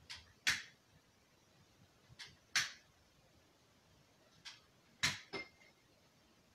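A few sharp clicks and taps, mostly in close pairs about half a second apart, with a faint short high beep near the end.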